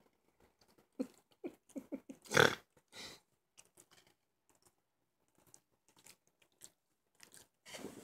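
Dog sniffing and snuffling at close range in a run of short snorts and mouth noises, the loudest about two and a half seconds in. A rustle of bedding starts near the end.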